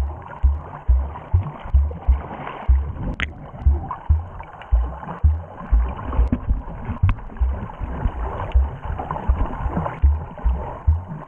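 Muffled underwater water noise through a GoPro's waterproof housing, with strong low thumps about twice a second, unevenly spaced, from the water pushing against the hand-held camera as the snorkeler swims. One sharp click comes about three seconds in.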